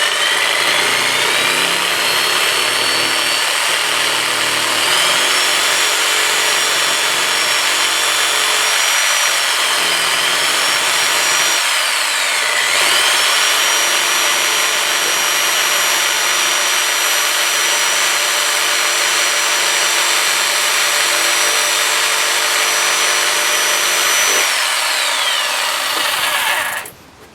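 Electric jigsaw cutting into the plastic casing of a key fob, running without a break for about 26 seconds. Its motor whine dips briefly twice near the middle as the blade bites, and winds down when it is switched off near the end.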